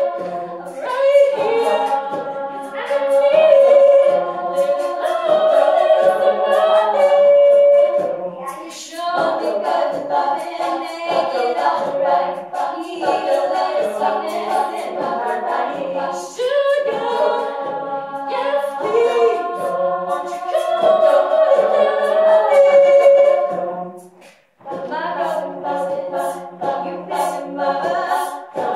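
All-female a cappella group singing in close harmony, voices only, with sharp percussive hits keeping the beat. The voices cut out briefly near the end, then come back.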